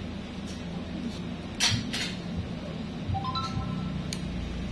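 Steel nail nippers clicking and snipping at the edge of an ingrown toenail. There are a few sharp metal clicks, the loudest a snap about a second and a half in. A short three-note rising chime sounds about three seconds in.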